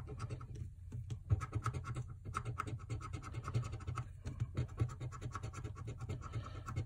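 A coin scraping the coating off a scratch-off lottery ticket in quick, repeated strokes, with a few brief pauses between bursts of scratching.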